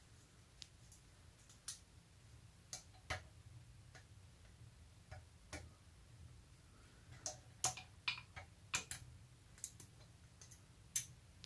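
Light, irregular metallic clicks and taps as a magnetic pick-up tool probes the valve spring retainer of a Porsche M96 cylinder head to pull out the second half of a valve collet. The clicks come more often in the second half.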